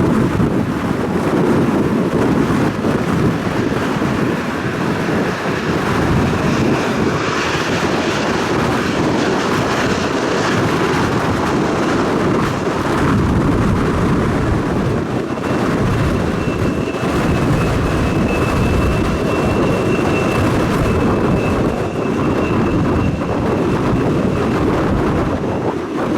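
Airliner engines running loud at an airport, mixed with gusting wind on the microphone. A thin high whine rises out of it in the second half and fades before the end.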